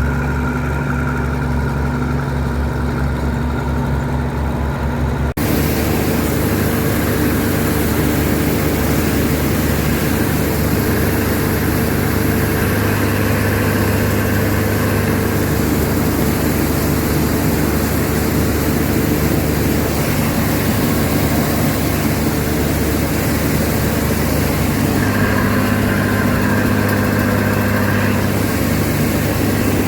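Harvesting machine's engine running steadily. The sound changes abruptly about five seconds in, and its tone shifts again later on.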